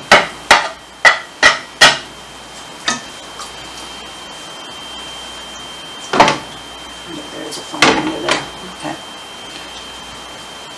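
Kitchen utensil clinking against a dish about twice a second for the first two seconds, then two louder knocks about six and eight seconds in, over a faint steady high whine.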